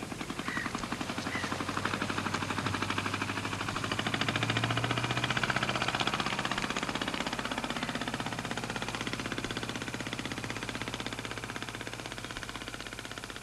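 Engine of a small open wooden fishing boat running steadily under way, a fast, even putter that grows louder toward the middle and fades toward the end as the boat passes.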